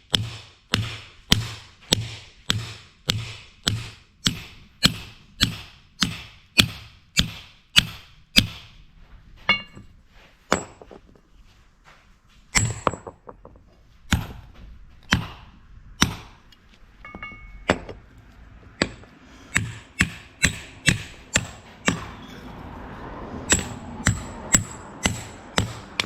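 A hammer striking metal in a steady run of blows, about two a second, then slower, irregular blows with brief metallic ringing.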